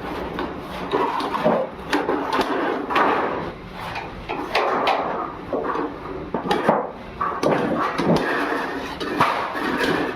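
Sheet steel cut from old oil drums being worked by hand: irregular knocks and scraping of metal being hammered and shaped.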